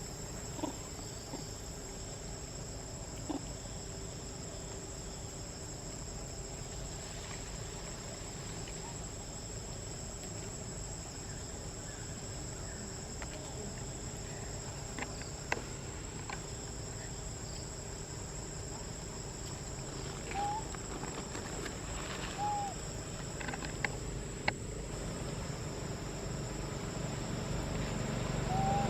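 Steady high-pitched insect chorus of crickets or cicadas, with a few short calls and clicks now and then. A low engine rumble rises near the end.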